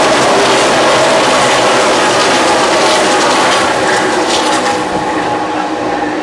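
A pack of NASCAR Cup stock cars with V8 engines running at racing speed past the grandstand, a loud continuous engine drone that eases slightly about four seconds in.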